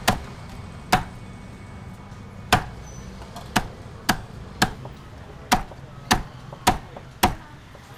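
A cleaver chopping down on a cutting board: ten sharp strokes, spaced unevenly at first, then coming about every half second.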